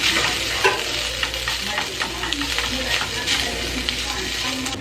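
Cooked rice frying in oil in a frying pan, sizzling steadily, while a wooden spatula stirs and scrapes through it in frequent short strokes.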